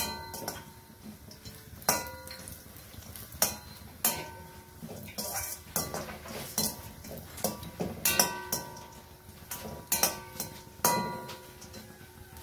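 A metal spoon stirring cashews and almonds as they roast in ghee in a stainless-steel kadai. It scrapes and knocks against the pan every second or so, and the bigger knocks leave the steel ringing briefly.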